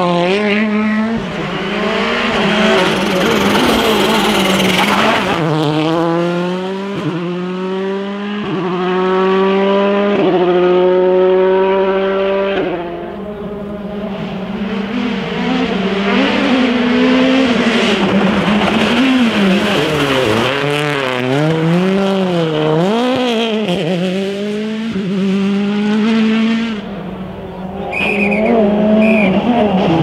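Several turbocharged four-cylinder World Rally Cars passing one after another at speed. Their engines climb in pitch through a run of quick gear changes, then rise and fall rapidly as the drivers work the throttle into and out of corners.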